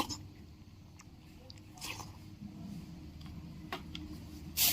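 Someone eating tofu pudding from a bowl: quiet chewing and slurping with a few small clicks of the spoon. Just before the end a loud steady hiss cuts in suddenly.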